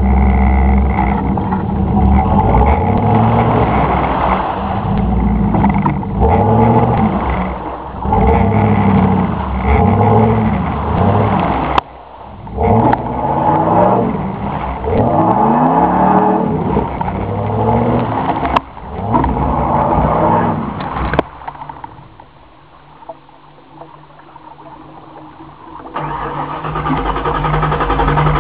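1995 Ford F-150 engine revved again and again, each rev rising in pitch, as the stuck two-wheel-drive truck tries to spin its way out of the mud, with a few sharp clicks among the revs. About 21 seconds in it drops back to a low idle, then runs steadier and louder near the end.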